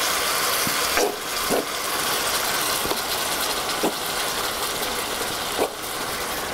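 Vegetables sizzling and hissing steadily in a cast-iron Dutch oven as strained tomatoes (passata) are poured in from a carton, with a few short glugs from the pouring.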